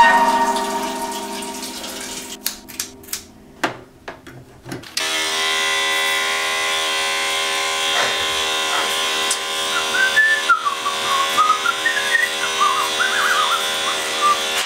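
Electric hair clipper switching on about five seconds in and then buzzing steadily while it trims a beard, with a tune whistled over the buzz in the second half. Before it, a ringing tone fades away over the first few seconds and a few sharp clicks sound.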